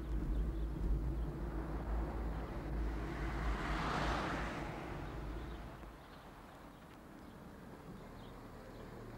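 Open-top Ford Escort driving, with a steady low engine and road rumble. A rushing sound swells and fades around four seconds in, and from about six seconds the rumble drops away to a quieter hum as the car slows.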